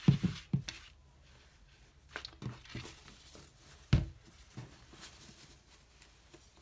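Handling noise from a plastic baby doll and a cloth diaper cover on a wooden floor: a few soft knocks and fabric rustling, with one heavier thump about four seconds in as the doll is laid down on the cover.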